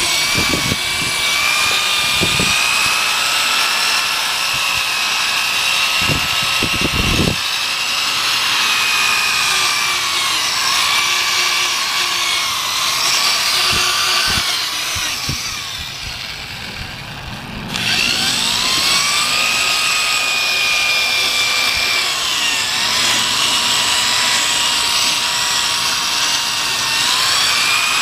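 Power drill spinning an 800-grit sanding disc from a 3M headlight restoration kit against a plastic headlight lens: a steady motor whine over the rub of the sandpaper, its pitch drifting as the drill's speed changes. About fifteen seconds in the drill eases off, and it spins back up with a rising whine a couple of seconds later.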